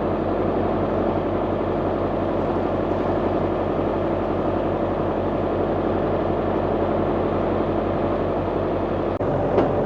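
International 785 tractor's diesel engine running steadily at a constant speed.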